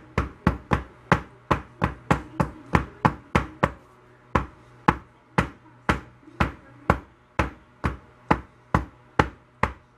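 Soap loaf mold full of freshly poured cold process soap batter being rapped on a wooden counter, a steady run of sharp knocks about three a second with a brief pause near the middle, to drive trapped air bubbles up to the surface.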